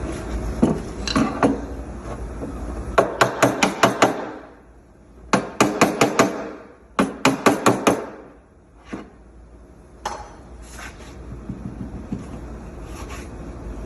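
Body hammer tapping the Audi Q5's sheet-metal quarter panel against a dolly held behind it. The taps come in three quick runs of about six, with single taps in between.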